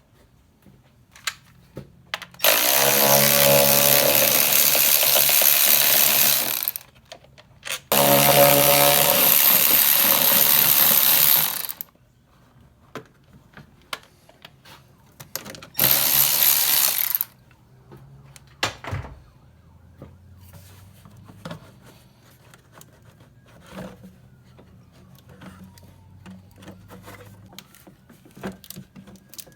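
Cordless power tool running in three bursts, two of about four seconds and a short one of about a second and a half, while fasteners on the engine's air intake are taken out. Small clicks and knocks of parts being handled follow.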